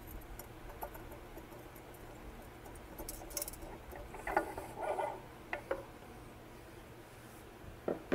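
Faint scraping and small metallic clicks as a centrifugal pump's seal cap is worked loose and slid off the pump shaft by hand, with a sharper knock just before the end.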